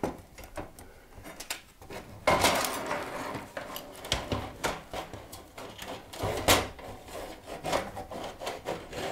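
A power supply being pushed into the bottom of a Cougar MX600 RGB PC case: rubbing and scraping against the case, then a string of short knocks as it catches, the loudest about six and a half seconds in. It is jamming against the hard drive cage and won't slide into place.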